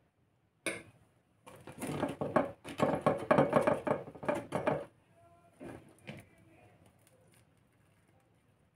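Dry crackling and rustling as crisp baked pudding cups are handled and picked off a paper napkin. A sharp click comes first, then a few seconds of dense crackles, then a few soft clicks.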